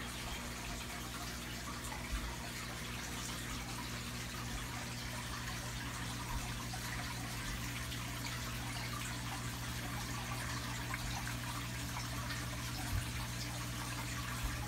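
Aquarium filter pump running: a steady splash and trickle of circulating water over a constant low hum.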